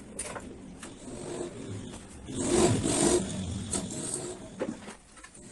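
Handling noises from a car-audio speaker box being taken apart: scattered knocks and clicks, with a louder scrape about two and a half seconds in.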